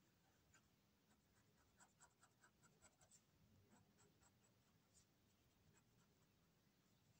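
Faint ticks of an ink pen's tip dotting on paper: a quick run of about six taps around two to three seconds in, with scattered single taps before and after.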